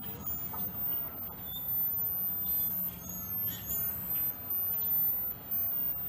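Steady low rumble of passing road traffic, a heavy vehicle by its sound, growing louder shortly after the start, with short, scattered high calls of blackbirds in the treetops.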